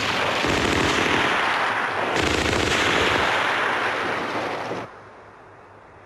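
Dense automatic gunfire, with rapid bursts of machine-gun fire crackling over a continuous din of shots. It drops off sharply about five seconds in.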